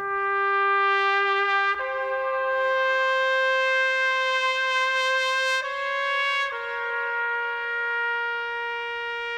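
Solo trumpet playing a slow line of four long held notes. It starts on a low note, steps up and holds for about four seconds, touches a slightly higher note briefly, then settles on a slightly lower note held to the end.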